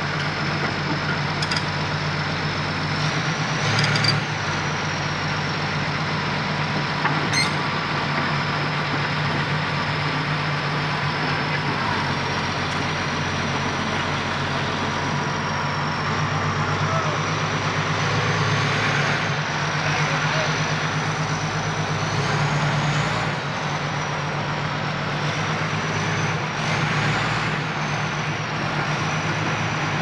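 Komatsu bulldozer's diesel engine running steadily as the dozer crawls up onto the ramp of a self-loader truck, with a couple of short knocks a few seconds in.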